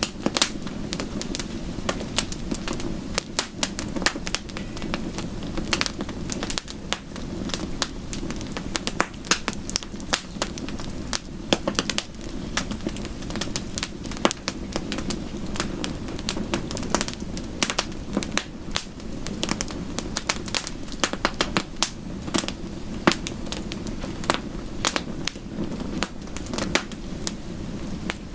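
Wood fire crackling in a fireplace: many irregular sharp pops and snaps, some louder than others, over a steady low rushing background.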